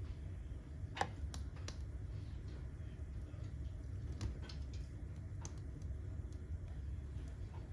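Wood fire burning in a fireplace, crackling with scattered sharp pops over a steady low rumble; the loudest pop comes about a second in.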